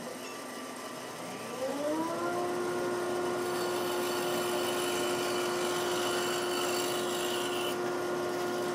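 Bandsaw motor spinning up, its hum rising in pitch for about a second and then running steadily. For a few seconds in the middle a higher whine joins it as the blade cuts a segment wedge from a wooden board.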